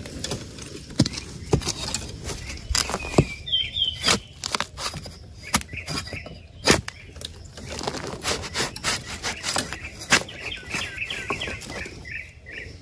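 Someone moving through forest undergrowth: irregular rustling, cracking and snapping of leaves and twigs. Short bird chirps come in about three seconds in and again near the end.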